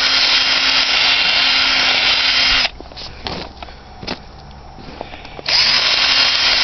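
Power drill with a large bit running and boring into ice packed in a hole in the ground, a loud grinding with a steady motor hum. It stops about two and a half seconds in, leaving a few knocks and clicks, and starts up again about a second before the end.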